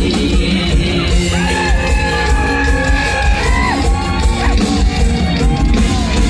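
Live amplified Isan-style stage song: a male singer holds long, bending notes into a microphone over a band with a heavy, steady bass beat.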